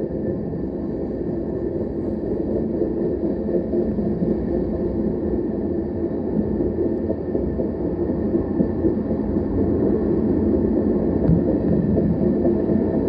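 Freight train tank cars rolling past, a steady rumble of steel wheels on the rails, with one sharp clank near the end.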